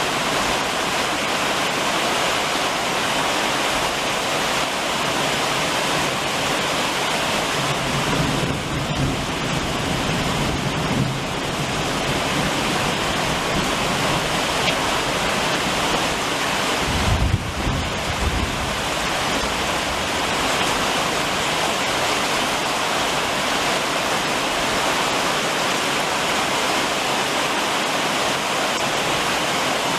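Summer rain drumming steadily on a roof, a dense even hiss. A low rumble comes through twice, about eight seconds in and again about seventeen seconds in.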